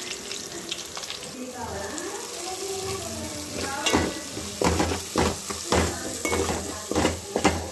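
Sliced onions and green chillies sizzling in oil in an aluminium pot while a steel spoon stirs them. In the second half the spoon scrapes and knocks against the pot several times.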